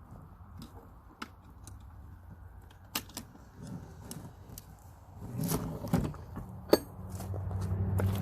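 Steel hand tools clicking and scraping against a transfer case's snap ring and housing as the ring is worked loose, with one sharp ringing metal click about two-thirds of the way through. A low steady hum comes in near the end.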